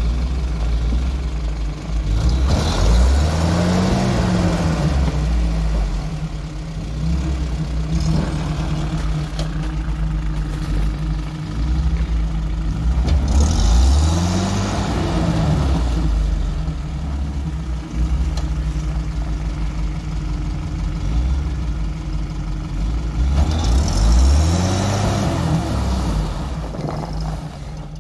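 UAZ off-road engines running under load during a tow on a snowy track. The engine revs up and eases off three times, a few seconds in, midway and near the end, each surge bringing a rushing noise.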